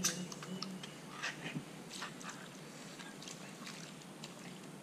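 Ring-pull tin of coconut cream being opened and tipped over a bowl: a scatter of small metallic clicks and snaps in the first couple of seconds.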